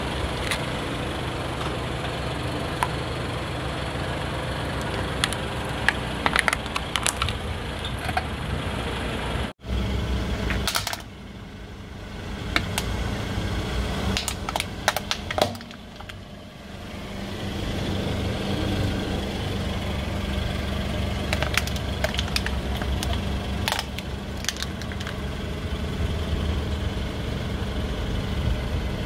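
Car engine idling as a tyre rolls slowly over plastic toys, with scattered sharp cracks and snaps of the plastic breaking under it. The sound cuts out briefly about a third of the way in.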